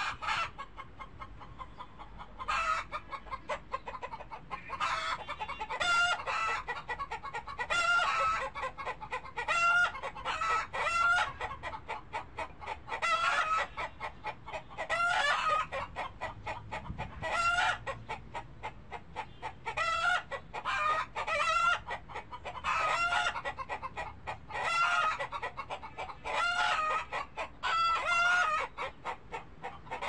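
Chickens clucking, with short pitched calls repeating every second or two.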